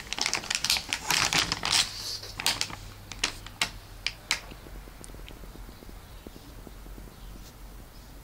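Plastic snack bag crinkling and crackling as it is handled and turned over: dense crackles at first, then a few sharp crackles, dying away after about four and a half seconds.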